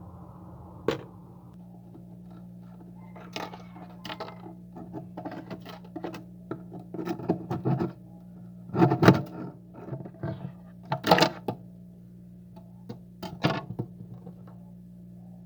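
Freezer frost crunching and scraping in irregular bursts, loudest about nine and eleven seconds in, over a steady low hum.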